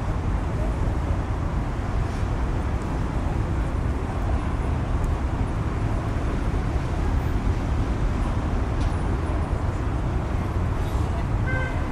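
City street ambience: a steady din of road traffic, with a deep low rumble under it.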